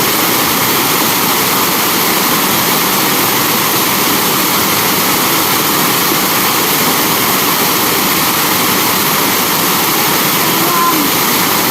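Waterfall pouring into a pool, a steady, even rush of water that holds constant.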